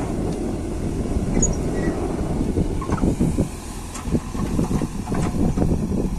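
JCB 3DX backhoe loader's diesel engine running under load as the hydraulic backhoe arm swings back and lowers the bucket into the soil, with scattered knocks and clatter in the second half.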